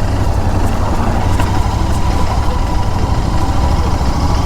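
Royal Enfield Continental GT 650's 648 cc parallel-twin engine running steadily at an even level.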